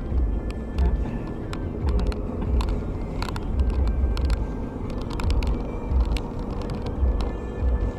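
Car driving on an expressway ramp, heard from inside the cabin: a steady low rumble of tyres and engine, with frequent short sharp clicks and rattles.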